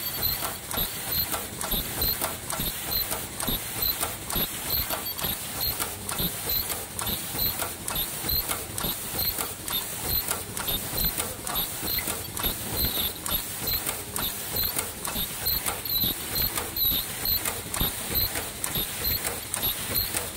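Automatic KN95 mask-making machine running at production speed: a dense, steady clatter of quick mechanical clicks and knocks, with a short high tone repeating a little faster than once a second.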